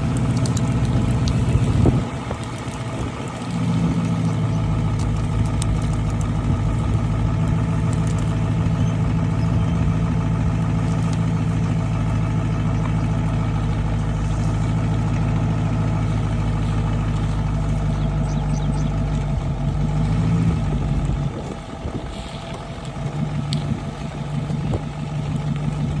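An engine running at a steady speed, its level dipping briefly about two seconds in and again about five seconds before the end.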